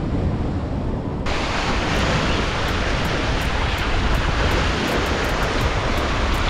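Sea surf washing against the rocks with wind buffeting the microphone, a steady noise heavy in the lows. About a second in, the sound suddenly turns brighter and hissier.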